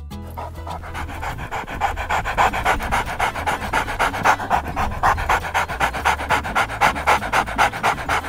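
Golden retriever puppy panting rapidly and rhythmically, about four breaths a second, starting about a second in and growing louder, over background music.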